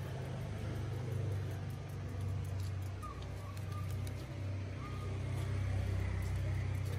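Steady low rumble, with two faint short chirps in the middle.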